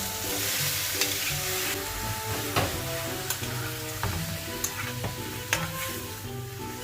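Food sizzling in a frying pan in butter and oil, stirred with a utensil that knocks against the pan several times.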